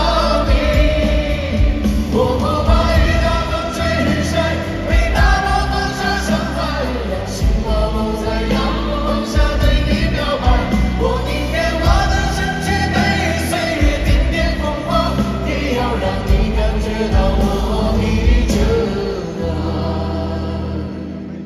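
Live band music with sung, choir-like vocals over a heavy, steady bass; it fades down near the end.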